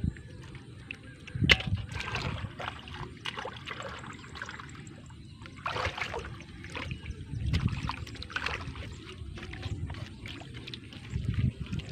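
Hands splashing and sloshing through shallow muddy water while groping for fish, in irregular splashes, with a sharp splash about a second and a half in.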